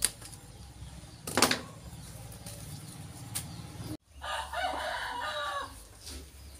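Two sharp snips from hand cutters cutting off a wire or branch end on a bonsai, the second about a second later and louder. About four seconds in, a rooster crows once in the background, a call of about a second and a half that falls at the end.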